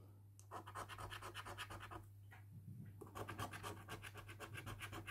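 A coin scratching the silver coating off a scratch-off lottery ticket, in quick strokes of about ten a second. It comes in two runs, with a short pause about two seconds in.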